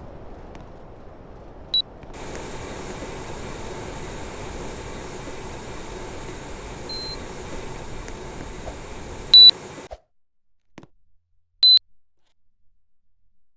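Air conditioner beeping a few short high beeps as it takes control commands, over the steady rush of its running airflow. The airflow gets louder about two seconds in and cuts off abruptly near the end, leaving only a last beep.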